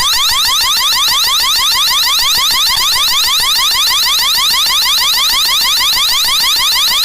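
Wyze Cam OG security camera's built-in siren sounding: a loud electronic alarm made of fast rising sweeps, several a second, repeating without a break.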